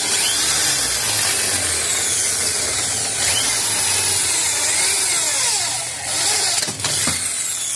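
Maktec corded electric drill running with a 3.5 mm bit, drilling through an aluminium frame profile to make a rivet hole. The motor runs steadily, eases off briefly about six seconds in, then picks up again.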